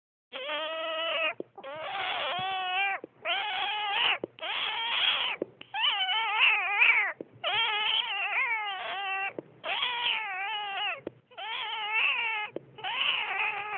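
A cat yowling over and over: about eight long, wavering calls of a second or more each, with short breaks between them. It is an unexplained noise that the uploader guesses is a disturbed cat.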